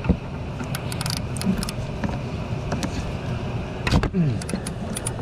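3/8 swivel-head ratchet and oxygen-sensor socket on a car's upstream O2 sensor: scattered metallic clicks and knocks as the ratchet is worked. About four seconds in comes a loud sharp crack as the seized sensor breaks loose from the exhaust manifold.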